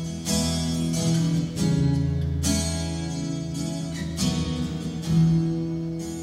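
Worship band playing an instrumental passage with no singing: strummed acoustic guitar over steady held chords, with a fresh strum every second or so.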